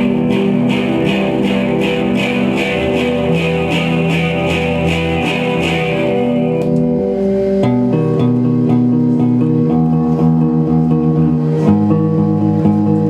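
Guitar music: held, layered guitar notes with a regular ticking beat, about three ticks a second, that stops about halfway through, after which the chords change.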